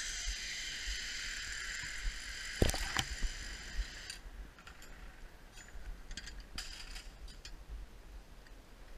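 A steady high whirring that stops sharply about four seconds in, with a loud knock shortly before, followed by scattered metallic clicks and clinks of zipline hardware: carabiners and a trolley pulley being handled and clipped onto the steel cable.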